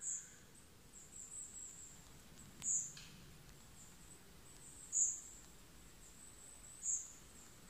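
A bird calling with four short, very high, thin notes about two seconds apart, faint over quiet background hiss.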